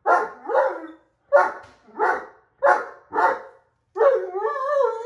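Great Dane puppy barking at a cat: six short barks, about two a second, then a longer wavering call near the end.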